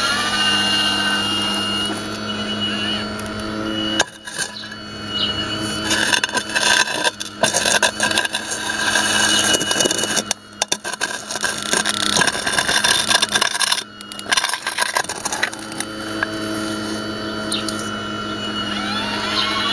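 Radio-controlled Hitachi 870 model excavator working: a steady motor whine that glides up and down in pitch as it moves, with the bucket scraping and crunching through broken concrete and gravel through the middle of the stretch.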